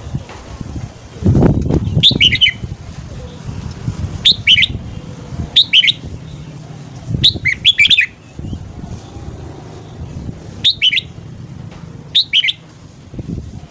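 Red-whiskered bulbul singing short, bright warbled phrases, about six or seven of them one to two seconds apart. There is a low rumble about a second in.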